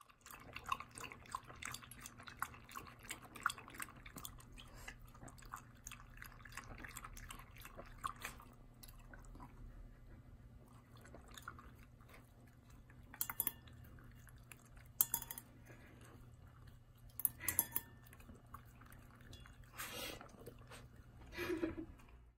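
Shiba Inu puppy lapping water from a stainless-steel bowl: a quick run of small wet laps for about the first eight seconds, then a few scattered laps and clinks against the bowl.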